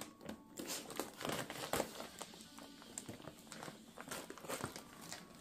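Clear plastic vacuum-seal packaging crinkling in short, irregular crackles as it is handled and cut open with scissors.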